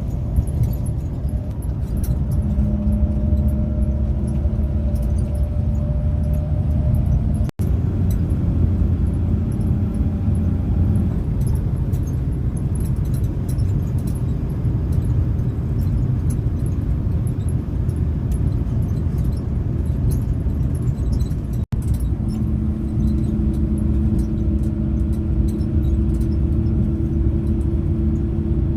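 Road vehicle in motion: a loud, steady low rumble with an engine hum that comes and goes, and light rattling. It is broken twice by split-second gaps.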